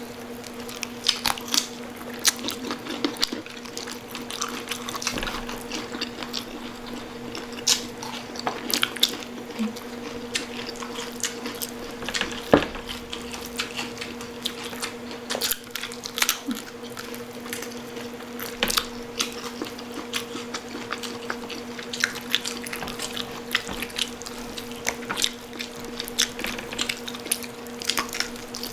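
Close-up chewing and biting on crispy pata (broiled pork knuckle), with many short crunches and clicks scattered throughout, over a steady hum.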